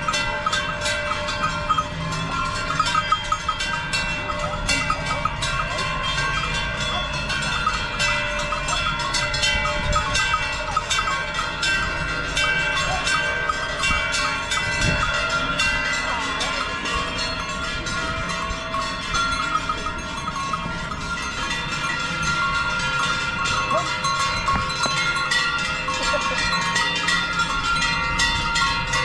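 Many cowbells hung from the necks of a herd of cows ring continuously as the cattle walk past, their clanging tones overlapping into a steady jangle.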